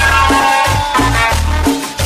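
Cumbia music: a bass line in short repeated notes under held higher tones and an even, shaken percussion rhythm.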